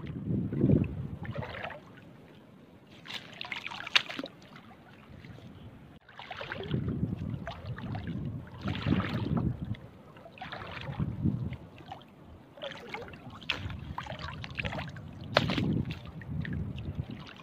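Shallow seawater sloshing and splashing in irregular surges every two seconds or so, with a couple of sharp clicks.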